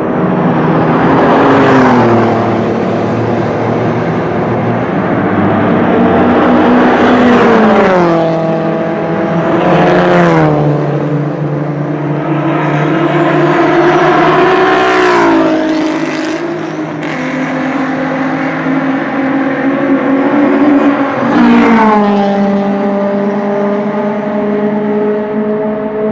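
Sports cars passing at speed one after another on a race circuit's straight, about five in turn, each engine note dropping in pitch as the car goes by.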